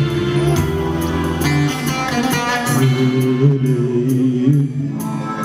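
Live folk band playing an instrumental passage: a plucked bağlama over keyboard with held low notes.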